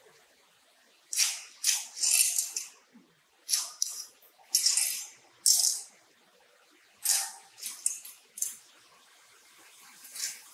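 Steel rebar being tied by hand at its crossings: a dozen or so short, bright scraping and rattling bursts of metal on metal, at uneven intervals with quiet between.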